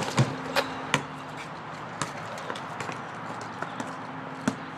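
A basketball bouncing: a quick run of dribbles in the first second, then a few scattered bounces.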